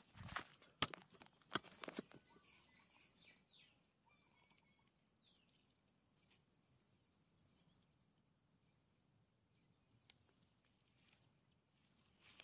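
A few footsteps on the ground in the first two seconds, then near silence with a faint steady high insect trill and a few faint short chirps.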